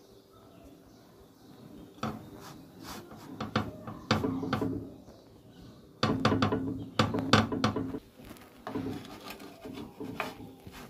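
Fingers pressing and patting rounds of semolina dough flat on a dry griddle: irregular rubbing and scraping against the pan, starting about two seconds in, with a louder run of sharp clicks and knocks from about six to eight seconds in.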